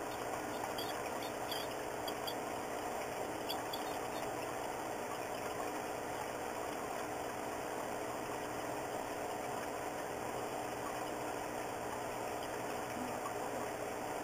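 A steady mechanical hum at a constant level, with a few faint, short, high squeaks in the first few seconds.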